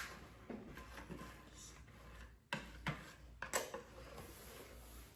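Faint, scattered knocks and clinks of kitchen utensils and dishes, a handful of separate light impacts a second or so apart.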